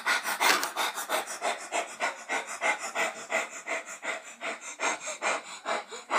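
A boy panting rapidly and hard right up against the microphone, an even rhythm of about five breaths a second.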